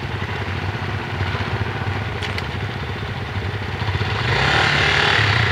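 Off-road trail motorcycle engine running steadily, growing louder about four seconds in, as the bike sits high-centred on its belly in the mud.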